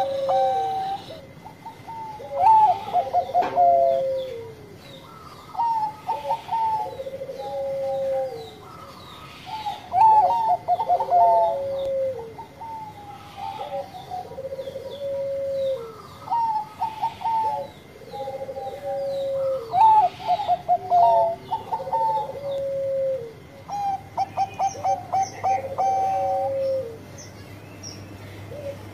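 Zebra dove (Bangkok-type perkutut) singing its cooing song over and over, each phrase a quick stuttering run of short notes ending in a lower, drawn-out coo, repeated about every three and a half seconds.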